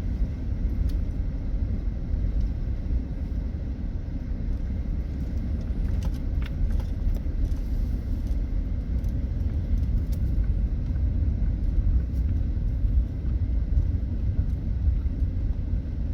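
Camper van driving on the road, a steady low rumble of engine and road noise, with a few faint rattles about six seconds in.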